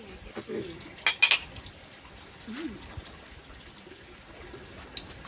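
A drink being poured into a glass, with two quick sharp clinks about a second in.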